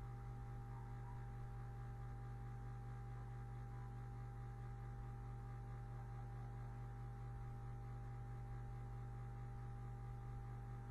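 Faint, steady low hum with a thin, higher steady tone above it.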